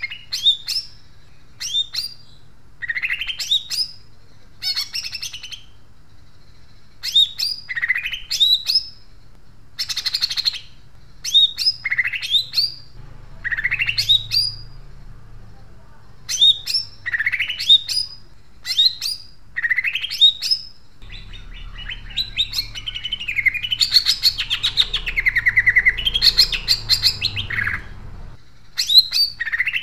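Caged songbird giving a rough, chattering song like a sparrow's: short, sharply rising chirp phrases repeat every second or two. In the second half comes a longer unbroken run of chatter lasting about seven seconds.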